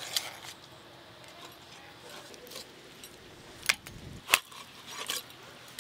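A few scattered sharp metallic clicks and clinks from kitchen utensils being handled, over a quiet background.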